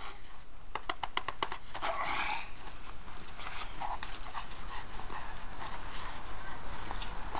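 Sounds from a dog, with a quick run of sharp clicks about a second in and a short noisy burst around two seconds in.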